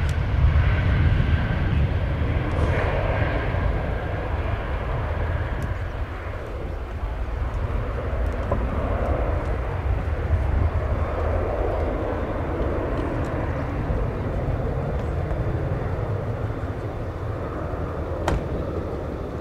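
Jet airliner's twin turbofan engines at takeoff power as the plane rolls down the runway and climbs away: a steady, heavy rumble that eases slightly as it recedes.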